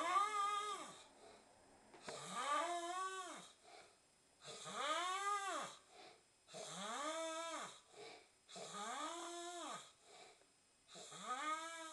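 A man snoring with a high, whistling whine on each breath that rises and then falls in pitch, with a breathy hiss over it. The breaths repeat evenly, about one every two seconds.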